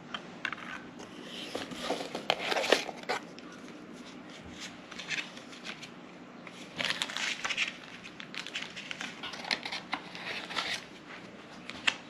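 Paper and plastic bubble-wrap packaging being handled and crinkled while a small cardboard box is unpacked. The rustling comes in two bunches, one about two seconds in and a longer one from about seven to eleven seconds in. A sharp tap comes just before the end.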